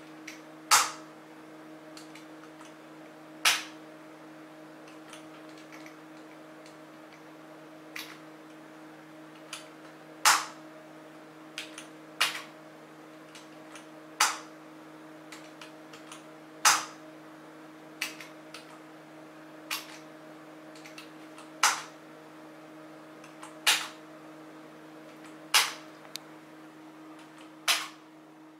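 A 28BYJ-48 geared stepper motor, driven from a Raspberry Pi by an Adafruit Motor HAT, running with a steady hum, while sharp clicks come every one to three seconds and are the loudest sounds.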